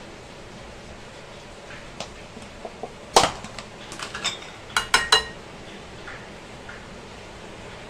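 A steel spoon clinking against bowls and a container: scattered sharp clinks, the loudest about three seconds in and a quick run of three around five seconds, some leaving a brief metallic ring.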